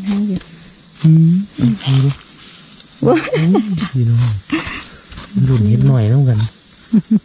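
A steady, high-pitched drone of insects runs throughout. A person's voice is heard in a few short phrases, and a small digging blade scrapes and clicks in loose soil.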